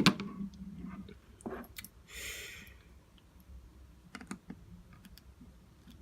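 Small clicks and taps of hand tools and phone parts being handled during an iPhone disassembly. A sharp click comes right at the start, then scattered lighter clicks, with a brief hiss about two seconds in.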